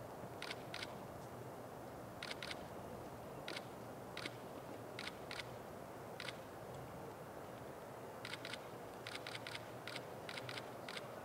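Camera shutter clicking repeatedly, in pairs and quick runs of sharp clicks, with a burst of rapid shots near the end, over steady faint background noise.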